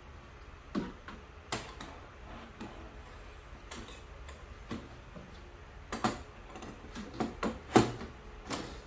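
A series of irregular sharp clicks and light knocks, about a dozen, with the loudest knock near the end.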